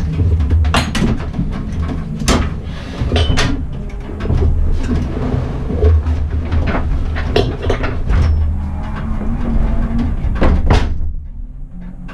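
Classic rallycross car's engine running low inside the stripped, roll-caged cabin, with irregular clunks and rattles from the bare shell.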